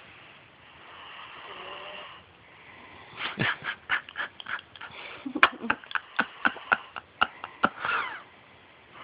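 Sleeping child snoring: a soft breath, then a run of short sharp snorts in the throat, about four a second for some five seconds, ending in a brief falling squeak.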